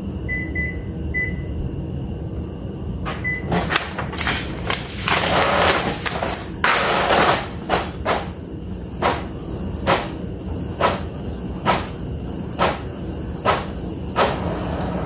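Epson ET-15000 inkjet printer: a few short beeps from the touchscreen, then the paper feeding in with a rushing whir, then the print head carriage running back and forth with a knock about once a second as it prints a head-alignment page.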